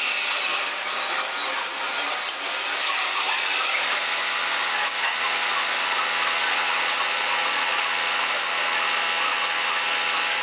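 Warco Super Mini Lathe running at slow speed while a parting tool cuts off a workpiece: a steady, even cutting noise, with a low steady hum joining about four seconds in.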